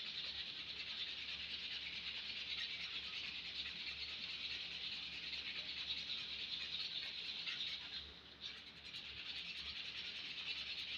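Sandpaper being rubbed quickly back and forth by hand over the hatchet's wooden handle, stripping its paint: a steady rasping that eases off briefly about eight seconds in.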